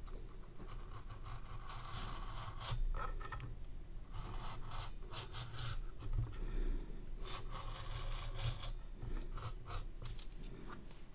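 A craft knife blade held against the rim of a turntable platter, slicing and scraping through the excess felt of a turntable mat as the platter is turned by hand. It makes an irregular, scratchy rasping.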